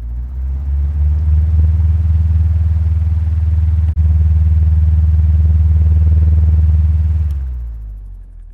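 Electric fan running with a steady, loud low hum and a light rush of air. It builds over the first second or so, cuts out for an instant about four seconds in, and fades away near the end.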